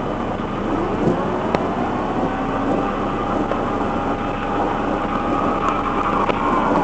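Motor vehicle running, with steady road and engine noise and a whine that rises in pitch about a second in, as if speeding up, then holds steady.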